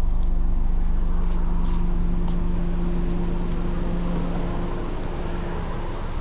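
A motor running with a steady hum and low rumble, the hum dropping away near the end, with a few faint ticks.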